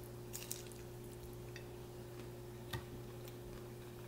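Hard-shell taco being chewed close to the microphone: a few faint crunches and mouth clicks, the sharpest about three quarters of the way in, over a steady low hum.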